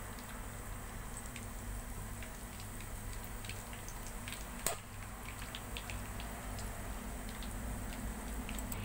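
Egg rolls deep-frying in hot oil: a steady low sizzle with many small scattered crackles and pops, and one sharper click about halfway through.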